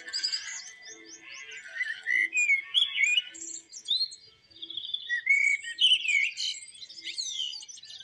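A chorus of songbirds, several singing at once in quick chirps, trills and whistles.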